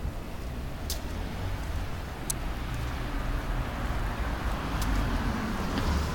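City street traffic noise with a heavy low rumble on a handheld phone's microphone, growing a little louder toward the end. Three sharp clicks come through it.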